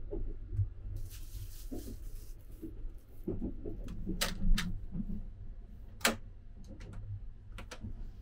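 Low rumble of the moving sleeper train, with a plastic shopping bag rustling about a second in. Then a run of sharp clicks as the compartment door's lock and latch lever are worked, the loudest about six seconds in.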